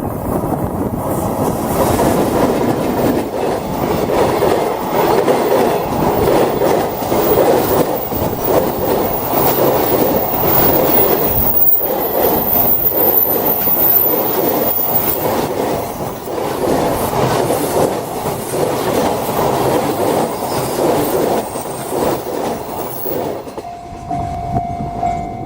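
Freight train wagons rolling past at speed, the wheels clattering over rail joints in a steady rhythm. The rolling noise fades out near the end, and a steady high tone starts just after.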